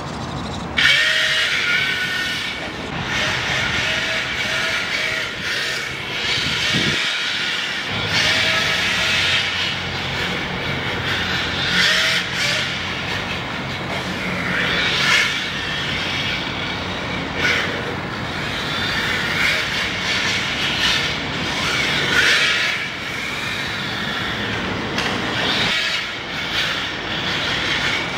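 MST FMX 2.0 LCG 1/10 RC drift car running on the track: its Team Powers brushless motor whines and its tyres scrub on the smooth surface in repeated surges as it slides through the corners.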